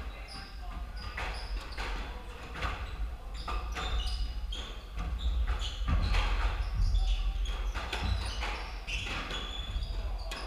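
Squash rally: repeated sharp knocks of the ball off rackets and the court walls at irregular intervals, with short squeaks of sneakers on the wooden floor.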